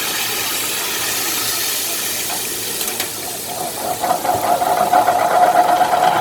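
Hot oil sizzling with a steady hiss as squid deep-fries. About halfway through, a louder steady buzzing hum with a fast rattle joins in and becomes the loudest sound.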